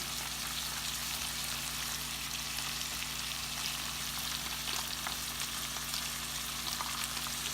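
Sliced roast beef frying in hot oil in a pan, a steady crackling sizzle.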